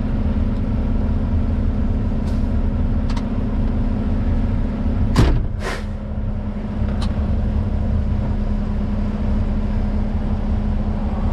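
Truck engine running steadily, heard from inside the cab. About halfway through, two short loud hisses come half a second apart, and the engine note drops slightly.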